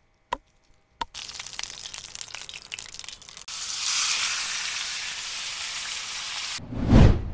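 Food frying in hot oil: crackling with many small pops, then a louder, steady sizzle from about two and a half seconds in. Two short tones sound in the first second, and near the end comes a loud low whoosh.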